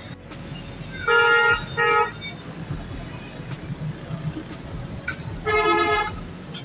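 Vehicle horns honking in street traffic: two short toots about a second in, then a longer blast near the end, over a low traffic rumble.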